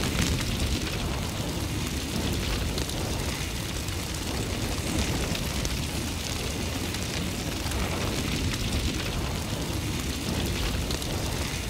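Steady roaring, crackling rush of a fire sound effect, laid under an animated flame overlay.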